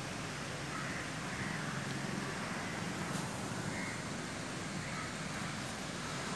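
Birds calling outdoors, short calls about once a second, over a steady background hiss and low hum.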